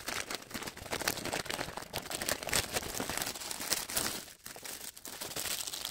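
Plastic mailer bag crinkling and rustling as hands reach in and rummage through it, with a brief lull about four seconds in.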